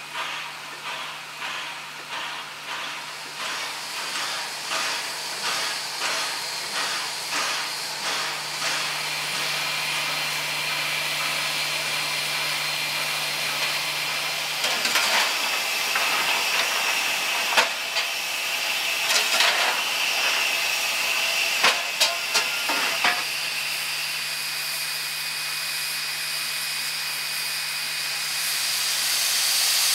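R class 4-6-4 steam locomotive standing in steam, hissing steadily over a steady low hum. For the first nine seconds or so a regular pulsing beats in the hiss. Between about 15 and 23 seconds come several sharp metallic clanks, and the hiss grows louder near the end.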